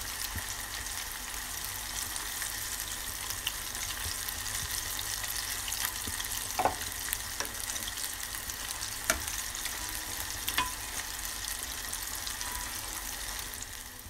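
Flour-breaded chicken feet skin deep-frying in a saucepan of hot oil: a steady, dense crackling sizzle, with three sharp clicks in the second half.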